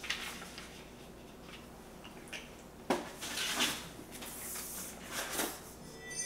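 Household handling noises: a few faint clicks, then a sharp knock about three seconds in followed by bursts of rustling, like things being moved and handled.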